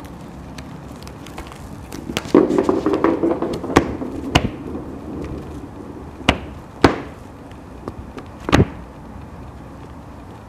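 A small hard ball batted about by a kitten, rolling on a woven mat and knocking against things. There is a rattling run of knocks about two seconds in, then several single sharp knocks.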